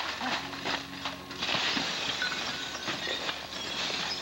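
Dry fallen leaves and brush crunching and crackling in a dense, irregular run of small snaps as someone thrashes through forest undergrowth. It is busiest in the middle.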